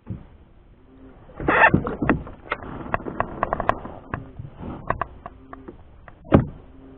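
A small hooked catfish being brought to the kayak and landed: a run of sharp knocks, clatter and splashes as it thrashes against the hull. The loudest hits come about a second and a half in and near the end.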